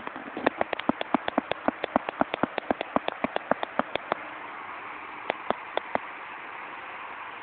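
Impact irrigation sprinkler ticking as its arm strikes the water jet, about six sharp clicks a second for around four seconds, then three slower clicks, over the steady hiss of spraying water.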